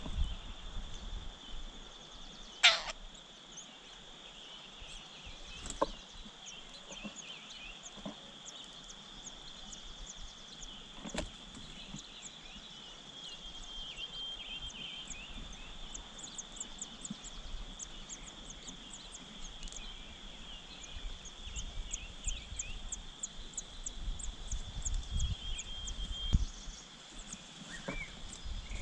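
Outdoor bird calls: a loud falling whistle about three seconds in, then runs of short, high, rapid chirps over the second half, set against a steady high-pitched drone.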